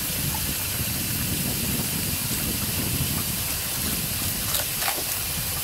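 Steady hiss of water running from a hose onto a fish-cleaning table.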